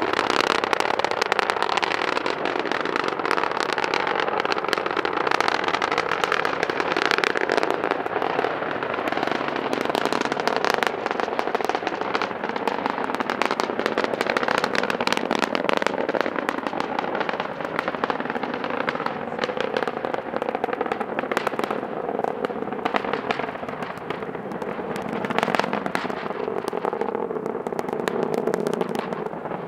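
Falcon 9 rocket's nine Merlin 1D first-stage engines during ascent, heard from a few miles away: a continuous, dense crackling rumble that keeps on through the whole stretch.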